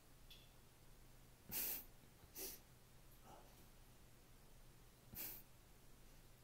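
Near silence with a faint low hum, broken three times by short, soft breaths close to the microphone.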